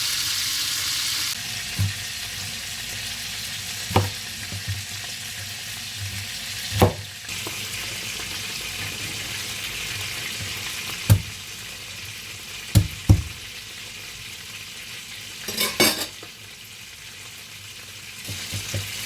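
Chicken thighs frying in oil in a pan, a steady sizzle, with a few sharp knocks now and then.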